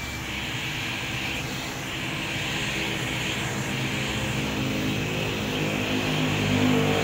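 Electric heat gun blowing a steady stream of hot air, heat-shrinking window tint film onto car glass; the airflow hiss swells and eases as the gun is moved. A low drone grows louder near the end.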